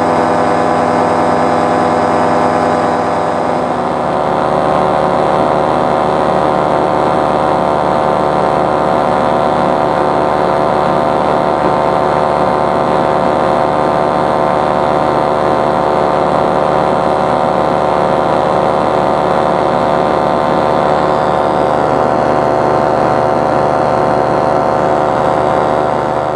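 Powered paraglider's paramotor engine running steadily in flight, a dense, even drone; its note shifts about three and a half seconds in.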